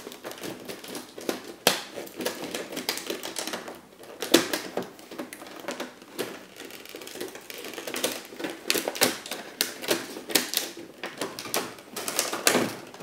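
Cardboard box packaging and plastic being handled as a drone's remote controller is pulled out of its box insert. It makes an irregular run of small clicks, scrapes and rustles.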